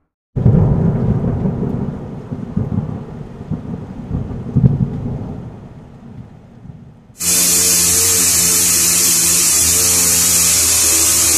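A low, irregular rumble like thunder that fades away over about seven seconds. Then a pneumatic orbital sander starts suddenly and runs steadily with a loud hiss and a hum, scuffing the old paint on a car's body panel before it is resprayed in a new colour.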